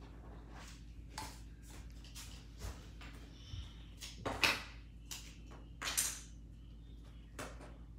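Small plastic clicks, taps and rattles of Lego bricks being handled and picked out, with louder clatters about four and a half and six seconds in, over a steady low hum.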